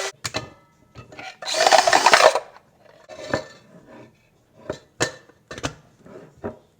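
A short, loud scraping burst about one and a half seconds in, followed by a series of sharp clicks and knocks, as of tools or work being handled.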